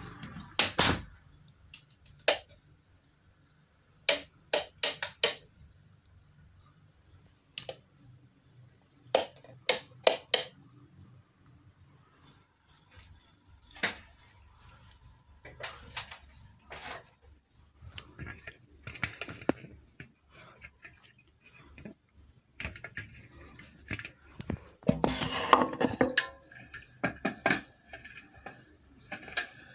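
Scattered sharp clicks, knocks and clinks of hands handling a ceiling light fitting while its glass globe cover is taken off, with a dense run of clicks near the end.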